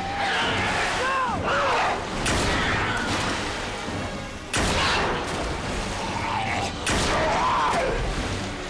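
Horror-film soundtrack mix: a dramatic score with sudden loud crashing hits, water splashing, and cries that rise and fall in pitch.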